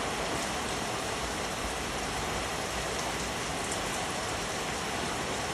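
Steady heavy rain, a dense even hiss of falling drops with no breaks.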